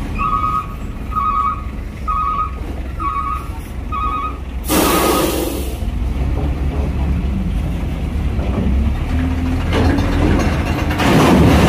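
Truck engines running low and steady, with a vehicle warning beeper sounding about once a second for the first five seconds, then a sharp hiss of air-brake air released about five seconds in, lasting about a second.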